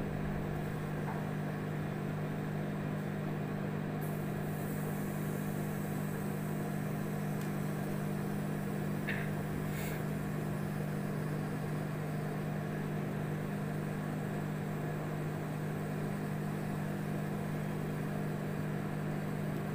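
Samsung microwave oven running with a steady, even hum, with two faint ticks around halfway through.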